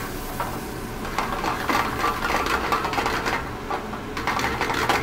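Metal skillet rattling and scraping on a gas range's cast-iron burner grate as it is shaken by the handle: a run of quick clicks and clatter over a low steady hum.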